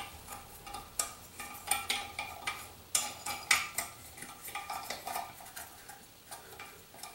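Irregular small metallic clicks and clinks against porcelain as the bidet's pop-up drain assembly is screwed into place from underneath the bowl.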